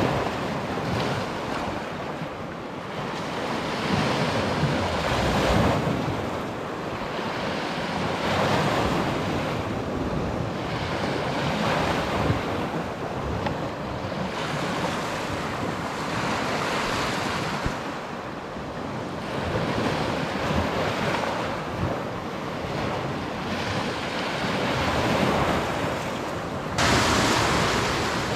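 Small Baltic Sea waves washing onto a sandy beach, swelling and easing every few seconds, with wind on the microphone. The hiss jumps suddenly brighter and louder near the end.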